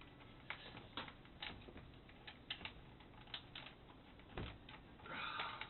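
Scattered light clicks and taps of hands working a photocell's wire and plug into a bowling pinsetter, with a brief rustling scrape about five seconds in.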